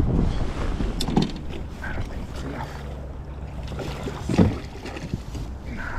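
Wind rumbling on the microphone aboard a plastic sit-on-top fishing kayak, with a couple of short knocks of gear against the hull, the louder one a little over four seconds in.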